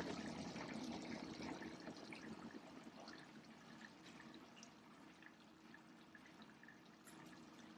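Ground turkey sizzling and crackling as it fries in a pan, with small pops, loudest at first and slowly dying down.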